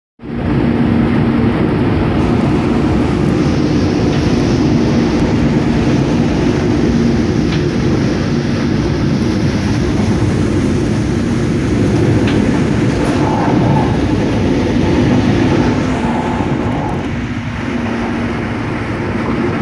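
Mugunghwa-ho passenger train running fast, heard from inside the coach: a steady rumble of wheels on rail with a low hum underneath.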